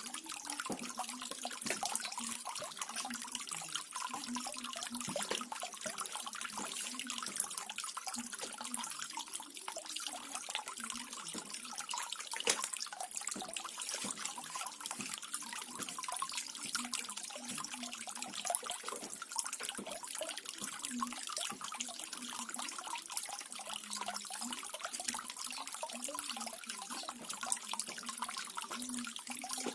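Small garden waterfall, water splashing and trickling steadily, with small gurgles scattered throughout.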